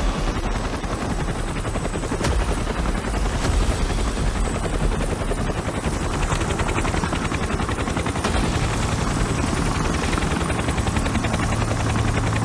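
Helicopter rotor chopping steadily in a dense, rapid beat over a low rumble.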